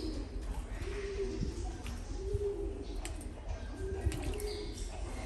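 A dove-like bird cooing: a string of low, soft coos repeated about once a second, over a low rumble.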